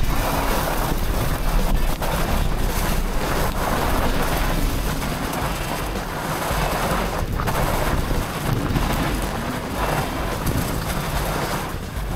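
Wind buffeting the microphone of a camera on a fat bike riding downhill on snow: a loud, steady rushing noise that swells and eases.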